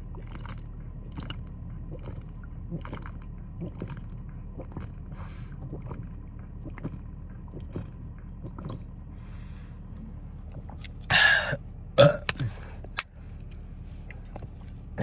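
A person chugging a drink, swallowing in a steady run of gulps a little faster than one a second. Near the end come two loud, breathy gasps for air as he stops drinking.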